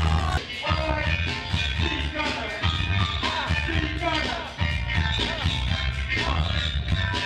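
Music with a steady, heavy bass beat.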